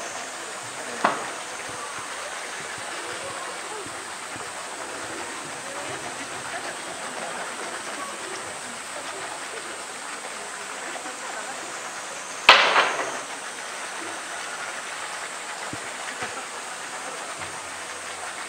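A hollow bamboo tube, handled by a polar bear, knocks against the concrete pool edge: a light knock about a second in and a much louder one near the middle with a short ringing tail. Steady rushing water underneath.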